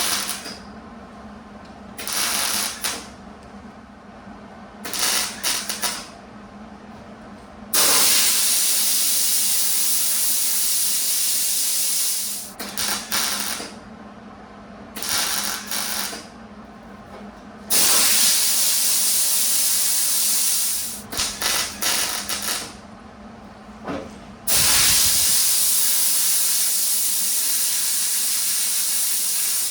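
Welder laying welds on a steel patch panel over a rust hole: several short tack-weld bursts of hiss about a second long, and three longer weld runs of a few seconds each. Each starts and stops abruptly.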